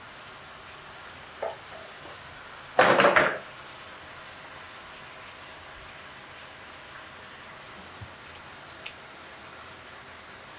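Spoon scraping batter against a stainless steel mixing bowl, one short loud scrape about three seconds in and a smaller one earlier, then a few faint light taps as cupcake batter is spooned into paper liners.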